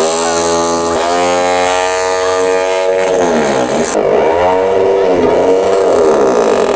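A hammer drill sound effect pitch-shifted to follow a character's line of dialogue: a loud buzzing drone whose pitch holds fairly level for about three seconds, then swoops down and back up several times like speech intonation.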